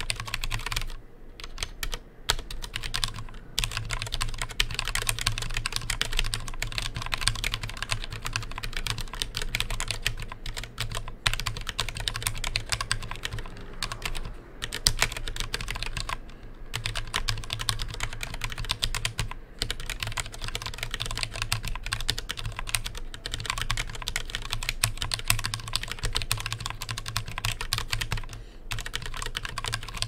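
Fast, continuous typing on a Mistel Barocco MD770 split mechanical keyboard with Cherry MX Red linear switches and lubed stabilizers: a rapid run of keystroke clacks, broken by a few brief pauses.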